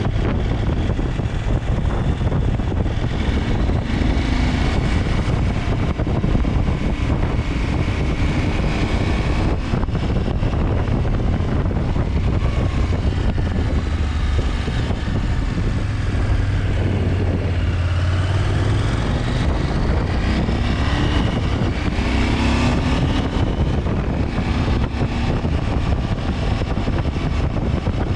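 KTM 890 Adventure's parallel-twin engine under way on the road, its note rising and falling with the throttle, with wind rushing over the microphone.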